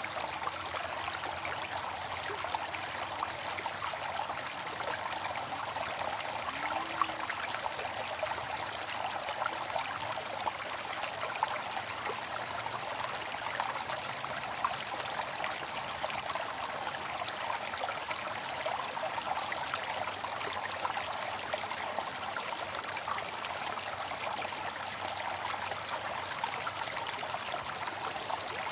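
Water fountain splashing and trickling steadily, its falling water making an even rush dotted with small droplet ticks.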